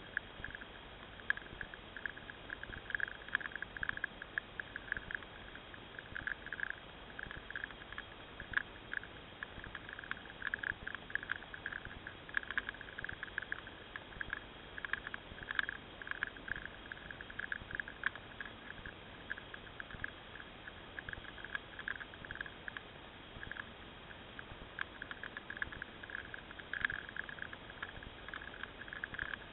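Uneven crackling buzz with frequent sharp clicks from a camera riding on a moving motorcycle: vibration and rattle picked up by the mount or housing, with no engine note audible.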